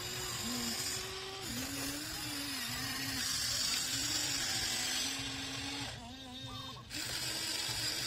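Small electric motors of a CAT-branded RC excavator whining as the boom, arm and turntable move, the pitch stepping up and down as each movement starts and stops, with a hiss over it. The sound dips and changes briefly about six seconds in.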